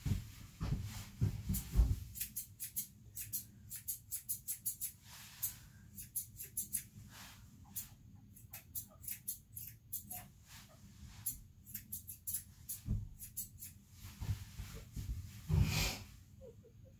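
Hand grooming of a wiry Airedale terrier coat: quick runs of short, scratchy strokes, about five a second, with pauses between the runs. There is a louder bump near the end.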